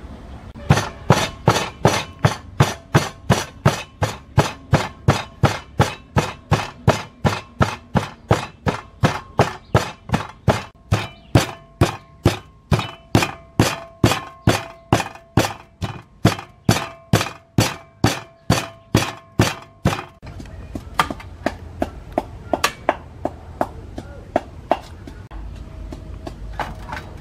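Wooden pestle pounding turmeric, lemongrass, shallots and leaves in a wooden mortar: a steady run of dull thuds, about two and a half a second, that stops about three-quarters of the way through. Fainter, scattered knocks follow.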